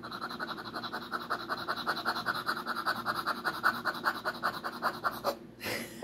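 Small dog panting rapidly and evenly while being petted; the panting stops about five seconds in.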